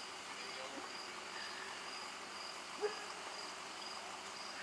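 Faint high-pitched insect chirring, a steady pulsing tone over a low hiss, with one soft short sound about three seconds in.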